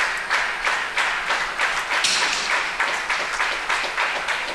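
Spectators clapping in unison in a steady rhythm, about two and a half claps a second, getting brighter and louder about two seconds in.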